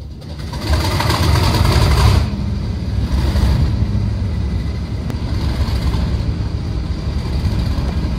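Diesel locomotive engine running, loudest for the first two seconds and then settling to a steadier, slightly quieter run, with a thin, steady high whine over the deep rumble.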